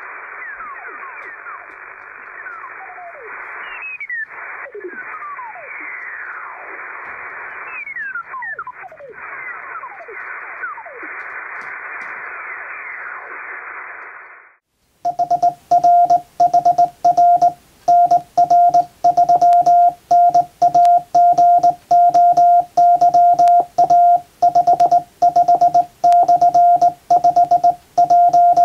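Shortwave receiver hiss through a narrow filter, with whistling tones sliding down in pitch, cuts out about halfway. Then Morse code at 18 words per minute is sent on a JRC KY-3A straight key, heard as a steady sidetone beeping on and off in dots and dashes.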